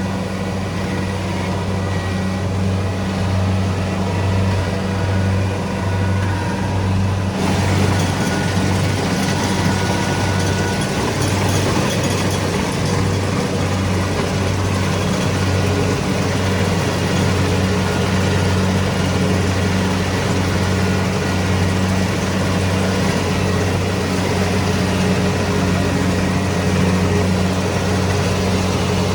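Kubota DC-70 Pro rice combine harvester running steadily with a deep, even engine hum. About seven seconds in, a brighter, hissing layer of machine noise joins and carries on.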